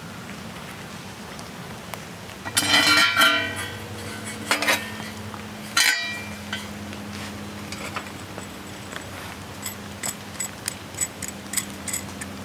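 Metal cookware clattering and ringing: a loud clatter a little after two seconds in, two shorter clanks after it, then a run of light clinks and taps near the end, over the steady hiss of rain.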